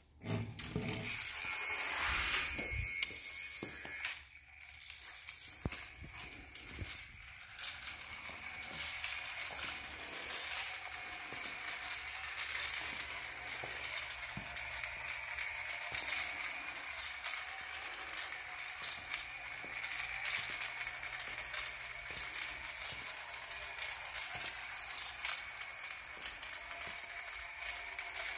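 A 1950s Corona Sedan battery-operated toy car's small electric motor and gears whir steadily as it runs, with light clicks and rattles throughout; it is louder and more uneven for the first few seconds.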